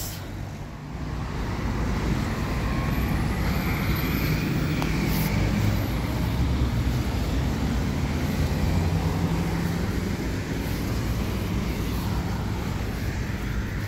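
MAN SG262 articulated bus's diesel engine pulling away from a traffic light under throttle. The drone builds about a second in and then holds steady, with a faint rising whine over the first few seconds and city road traffic running underneath.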